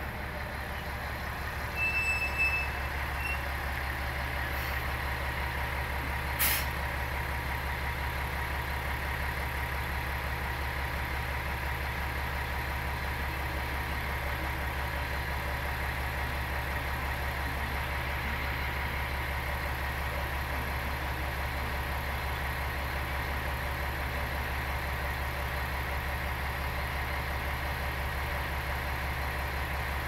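Single-car diesel railcar idling at a station platform: a steady low engine drone with a steady hum above it. A brief high beep sounds about two seconds in, and a short sharp sound about six seconds in.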